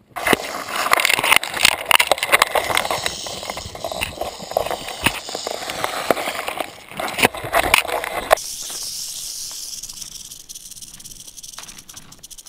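Prairie rattlesnake buzzing its tail rattle as a warning, close and loud at first with dry grass scraping and knocking against the camera, then fainter and steady from about eight seconds in.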